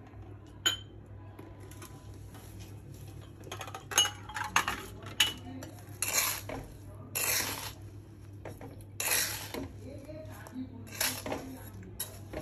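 Metal spoon stirring a thick mawa, sugar and dry-fruit filling in a metal vessel: a short ringing clink near the start, then irregular scrapes against the vessel's side from about four seconds in.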